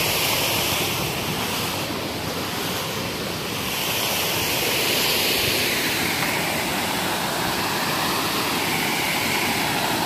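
Steady rushing of water pouring over a stepped dam and splashing into the pool below.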